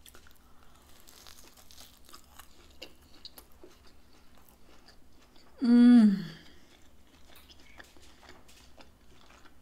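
Chewing a mouthful of fried pizza-dough taco empanada, with small crunches of the crisp crust. About six seconds in there is one short vocal sound from the eater that falls in pitch.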